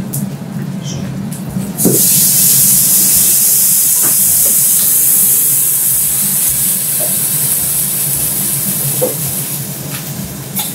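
Water hitting a hot teppanyaki griddle and flashing to steam: a loud hiss that starts suddenly about two seconds in and slowly fades.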